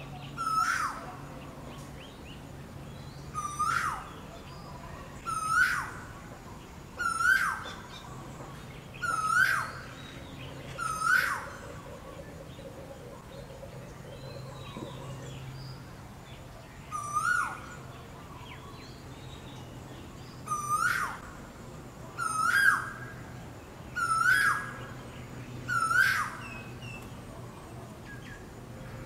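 Male Asian koel giving its mating call: one loud note that rises and then drops sharply, repeated about every two seconds. Six calls come in a first run, then after a pause of several seconds five more.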